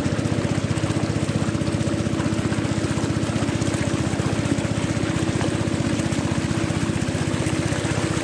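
Small boat motor running steadily while underway, a fast, even putter at a constant pitch.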